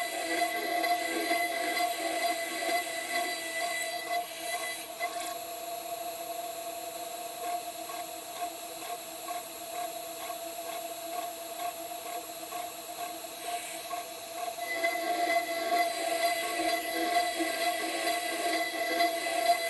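CNC 6040 router's spindle running with an end mill cutting into an aluminium plate: a steady whine with a high hiss and scraping cutting noise. It is louder in the first few seconds and again over the last five, quieter in between.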